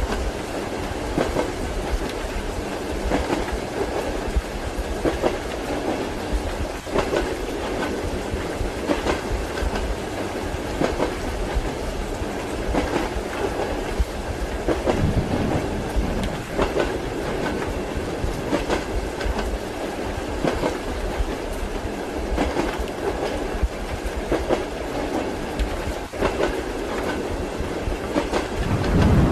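Train wheels clacking over rail joints every second or two, over the steady rumble of a moving railway carriage, heard as from inside the compartment.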